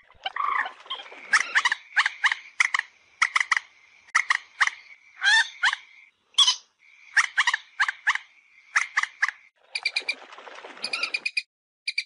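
Common moorhen fighting calls: loud, short, sharp notes, many in twos and threes, over a steady high-pitched tone. About ten seconds in, the notes give way to a fast run of clicky notes.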